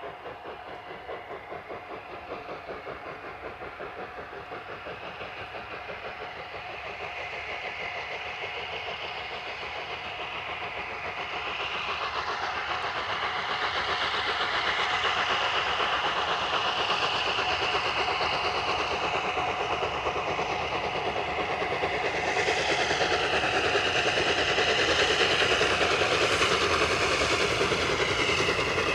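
Peppercorn A1 Pacific 60163 Tornado, a three-cylinder steam locomotive, working a train towards the listener. Its exhaust beats come in a fast, even rhythm and grow steadily louder as it approaches.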